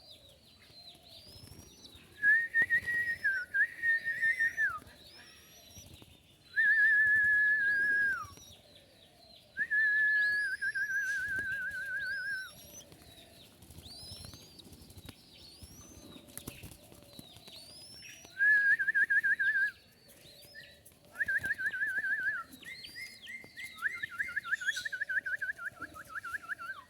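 Dove chicks calling: a series of about eight high, steady-pitched notes, each one to four seconds long, some with a rapid wobble. Short rising chirps run throughout, higher up.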